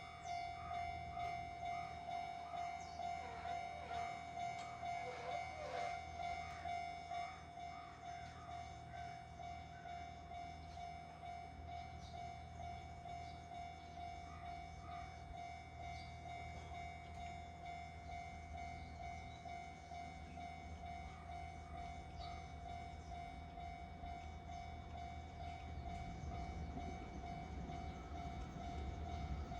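Japanese railway level-crossing alarm ringing its steady electronic clang, about two strikes a second, with a few bird chirps in the first seconds. Near the end the low rumble of the approaching freight train builds under the bell.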